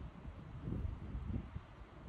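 Wind buffeting the microphone in irregular low rumbling gusts, with a faint rustle.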